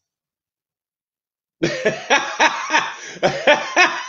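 Dead silence for about a second and a half, then a man laughs heartily, a quick run of 'ha' pulses about three a second.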